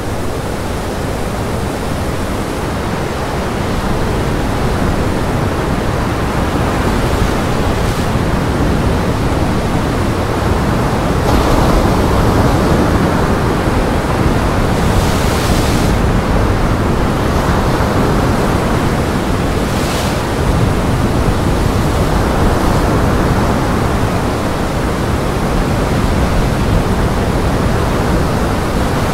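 Gale-driven surf: waves crashing and rushing against a rock breakwater in a steady roar of water, with strong wind rumbling on the microphone.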